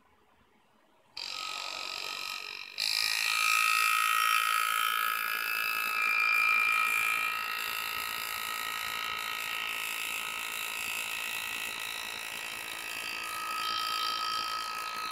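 Pneumatic engraving handpiece (air graver) running as its graver cuts into a metal plate: a steady buzz with a constant high whine. It starts about a second in and grows louder a couple of seconds later.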